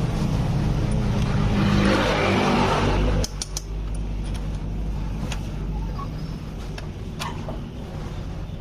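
A motor vehicle's engine running steadily, louder for the first three seconds and then dropping off suddenly, with a few sharp metallic clicks of tools on metal.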